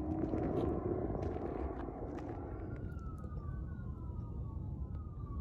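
Rumbling noise and rustling on the microphone with scattered clicks, fading over the first couple of seconds. In the second half a faint distant siren falls slowly in pitch, twice.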